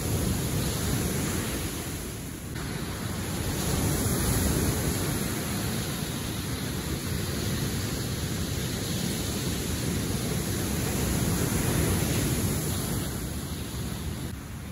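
Ocean surf washing onto a sandy, rocky shore, with wind on the microphone; the rush of water swells and eases.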